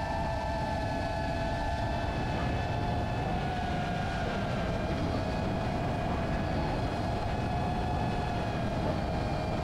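Brushless motors and propellers of an Emax Babyhawk II HD 3.5-inch FPV quadcopter whining steadily in flight. The whine dips a little in pitch over the first second or two, then holds with small wavers over a low rush of air, heard from the GoPro mounted on the drone.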